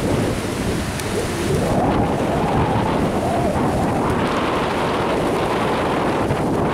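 Tropical-storm wind buffeting the microphone in a steady, heavy rumble, over the wash of breaking surf.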